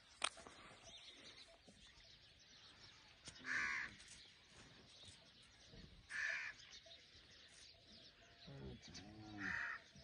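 A crow cawing three times, harsh calls about three seconds apart.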